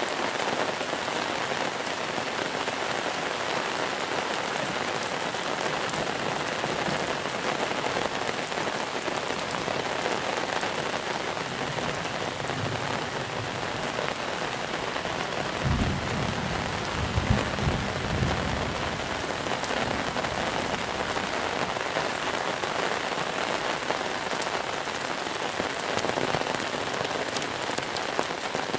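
Steady heavy rain falling, an even hiss of drops on surfaces. About halfway through, a brief low rumble rises under it for a few seconds.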